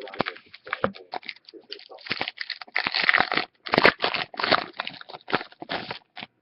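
Trading card pack wrapper crinkling as it is handled, a quick run of rustles and crunches that are loudest in the middle.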